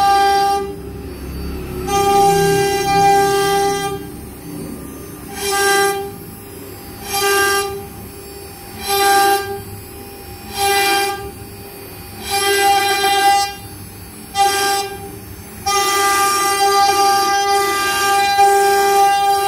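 CNC router spindle running with a steady high whine while its bit carves a relief pattern into a board. Louder bursts of cutting noise come about every second and a half to two seconds in the middle stretch as the bit passes through the material, with steadier cutting near the start and over the last few seconds.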